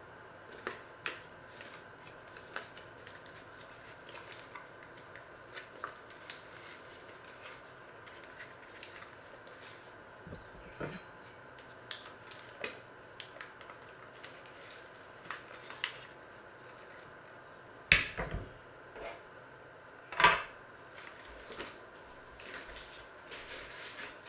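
Kitchen clatter: scattered small clicks and taps, with two louder knocks in the last third.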